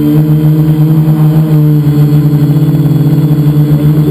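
Multicopter's electric motors and propellers humming steadily, heard up close from a camera mounted on the craft. Partway through, the pitch dips slightly and the hum beats in a fast flutter as the motors change speed.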